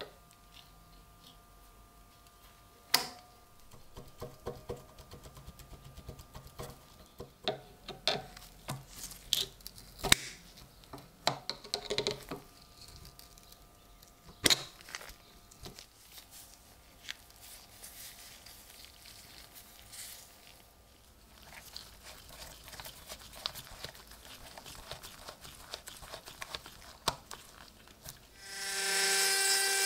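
Scattered taps and clicks of metal tools on a rusty sailor's pocket knife, some leaving a short metallic ring. Near the end a small rotary tool starts up with a high whine.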